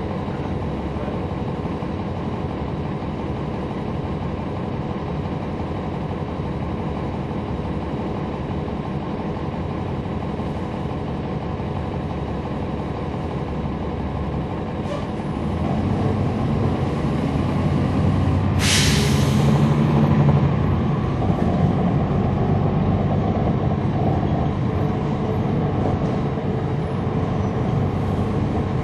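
Cummins ISL9 diesel engine of a NABI 40-SFW transit bus heard from the rear seats, running steadily, then louder about halfway through as it takes on more load. A short burst of air hiss comes about two-thirds of the way in.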